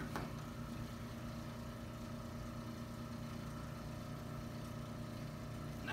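Steady low machine hum holding one pitch throughout, with a faint click just after the start.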